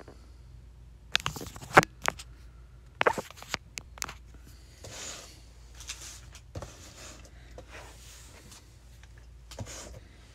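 Handling noise as a cardboard box of trading cards and other small items are moved on a tabletop: a run of sharp clicks and knocks about one to four seconds in, the loudest just before two seconds, then softer rustles and scrapes.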